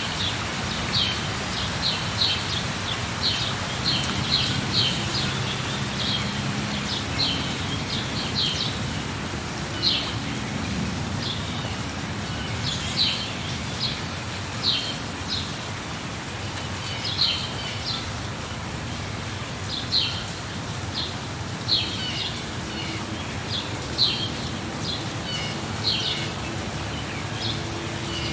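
Steady rain falling with a bird chirping repeatedly over it: short, high chirps, one or two a second, sometimes in quick little clusters.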